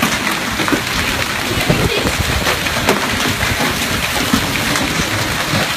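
Hailstorm: hail and rain coming down hard, a dense, continuous patter of many sharp impacts over a steady rushing hiss.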